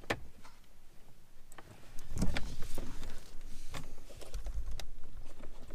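Hard plastic clicking, knocking and rattling as a 2018 Jeep Wrangler JL's instrument cluster assembly is worked loose and slid out of the dash, with a run of sharp clicks that gets busier about two seconds in.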